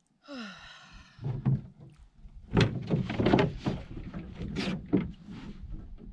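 A wooden canoe paddle knocking and scraping against the canoe as it is lifted and handled, a loud cluster of thunks and clatters in the middle. Before that comes a short whining tone about a second long.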